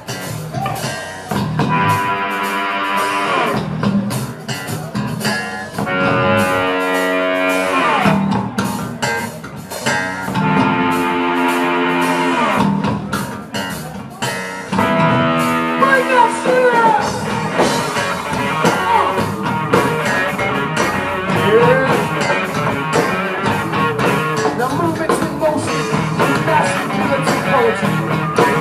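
Live rock band playing, with drum kit and guitar. In the first half a series of long held notes rings out over the drums, and from about halfway a busier lead line with bending pitches takes over.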